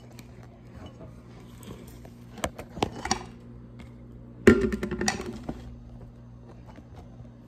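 Handling sounds: a few light clicks and knocks, then one louder thump about halfway through as a plastic water bottle is set down close by, over a steady low hum.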